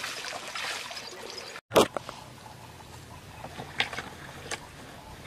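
Water splashing and trickling in a shallow rock pool, which cuts off abruptly about a second and a half in. Then comes a single sharp knock, followed by a couple of faint clicks over quiet background.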